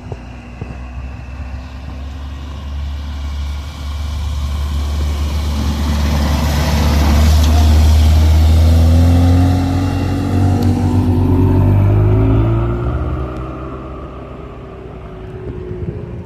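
A classic car's engine and exhaust as it drives past: the low note builds to its loudest about halfway through, climbs in pitch, then fades away.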